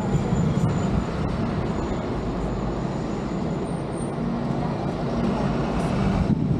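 Steady road-vehicle rumble and traffic noise, dense and low-pitched, without breaks.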